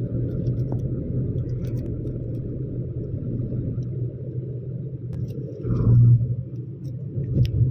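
Steady low rumble of a vehicle in motion, swelling briefly about six seconds in.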